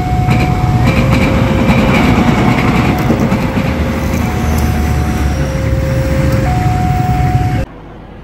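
Passenger train rumbling past at a level crossing, while the crossing's warning alarm sounds a two-note signal, alternating between a low and a high tone about once a second. Both cut off suddenly near the end.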